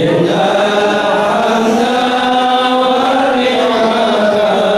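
Voices chanting a slow melody in long, held notes that glide gently from pitch to pitch.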